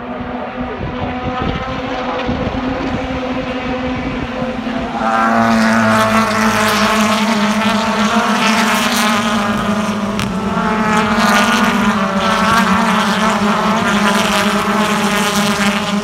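A large pack of BTCC touring cars passing in a close train, many turbocharged 2.0-litre four-cylinder engines overlapping. The sound builds and then is loud from about five seconds in, in two swells as the cars stream past.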